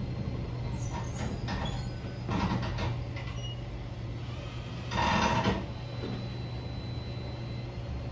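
Interior running sound of a Nagasaki Electric Tramway 3000-series tram at low speed: a steady low hum, with short noisy bursts about a second in and around two and a half seconds, and a louder one about five seconds in.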